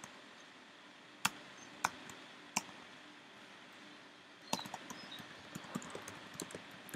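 Computer keyboard keystrokes: three single key presses a second or so apart, then a quicker run of typing from about four and a half seconds in.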